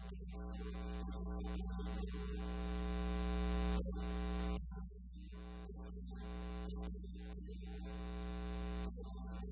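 Steady electrical mains hum, a low buzz with many even overtones. It swells slowly, then drops suddenly about halfway through.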